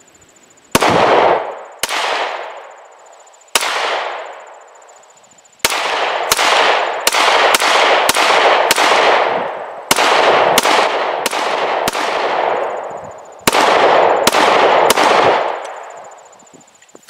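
Smith & Wesson M&P pistol in 9 mm Luger firing about eighteen shots: a few spaced shots at first, then quick runs of several shots. Each shot rings out with a long echoing tail.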